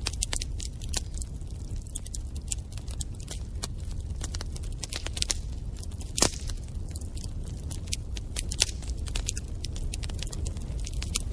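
Wood fire crackling in a fireplace: a steady low rumble of the flames under frequent sharp pops and snaps, with one louder pop about six seconds in.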